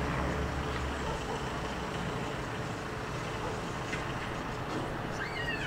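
Piston-engine propeller aircraft droning overhead. The deeper engine tone fades about a second in, leaving a steady rushing sound. A bird calls briefly near the end.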